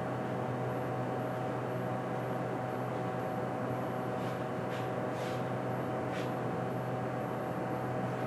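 A steady machine hum with a low drone, like a fan or ventilation unit running. A few faint soft swishes come in the middle.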